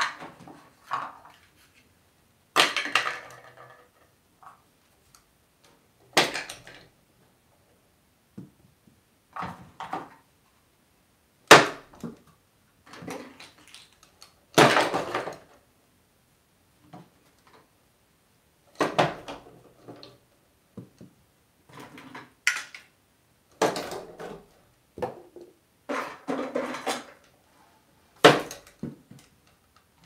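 Small plastic toys knocking and clattering against each other and the wooden drawer as an African grey parrot rummages through them with its beak and tosses them about: a run of separate sudden clatters every few seconds, with short quiet gaps between.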